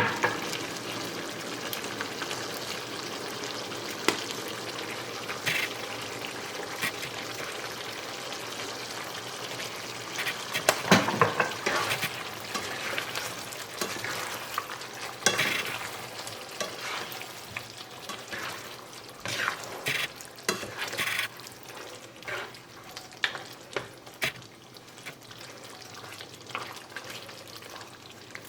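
Meat and crushed garlic sizzling in a hot pan while being stirred, with a steady frying hiss and scattered knocks and scrapes of the utensil against the pan.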